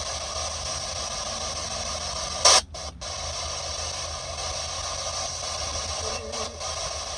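Steady static hiss, with one short loud burst about two and a half seconds in followed by brief cut-outs, and a few more brief cut-outs near the end.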